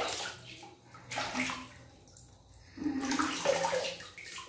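Water splashing and pouring back into a plastic basin as a baby monkey is rinsed by hand, in three splashy bursts.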